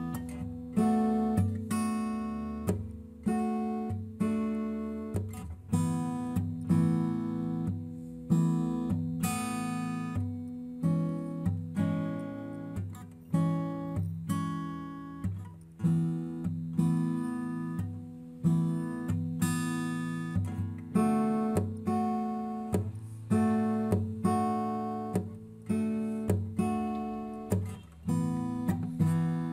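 Background music on acoustic guitar: a steady run of plucked and strummed chords, each struck and then fading.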